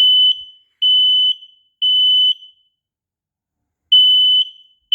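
Kidde P3010L smoke alarm, the lower-pitch version, sounding its temporal-three evacuation pattern. It gives three loud half-second beeps about a second apart, a pause of about a second and a half, then begins the next set of three near the end.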